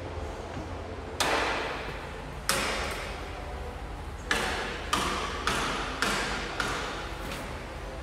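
A series of sharp knocks, about eight in irregular succession, each trailing off in an echo, over a steady low hum.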